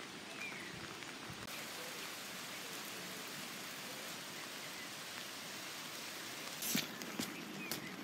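Steady outdoor background hiss with a few faint bird chirps, and some light taps near the end.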